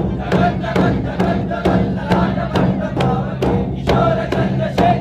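Nashik dhol drums beating a steady, even rhythm of a bit over two strikes a second, with voices shouting along over the drumming.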